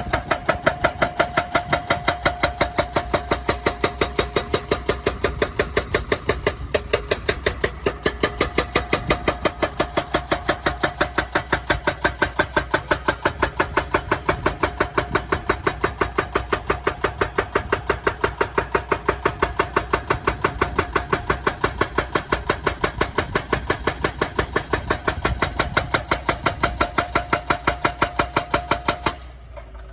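Excavator-mounted hydraulic breaker hammering with rapid, even blows, about four a second, over the steady hum of the excavator's engine. The hammering stops abruptly about a second before the end.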